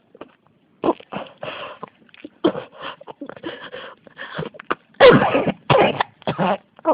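A woman coughing in a drawn-out fit: a run of short coughs, the loudest about five seconds in.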